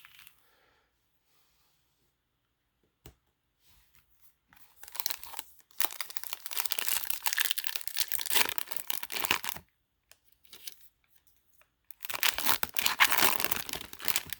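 A Magic: The Gathering Jumpstart booster pack wrapper being torn open and crinkled by hand, in two bouts of rustling: the first runs from about a third of the way in to past the middle, the second starts near the end. A single short click comes a little before the first bout.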